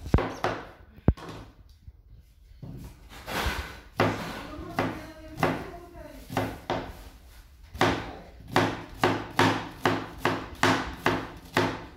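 Kitchen knife chopping an onion on a plastic cutting board. The strokes come irregularly at first, then settle into a steady run of about two to three chops a second in the second half.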